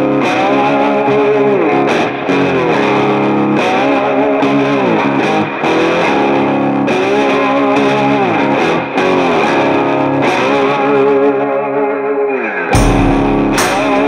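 Rock background music: a distorted electric guitar plays a repeating phrase with sliding, bending notes. About thirteen seconds in, a heavy low end and drum hits come in.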